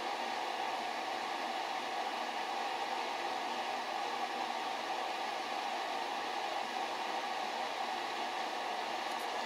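Steady, unchanging whoosh like a fan running, with a faint mid-pitched hum in it.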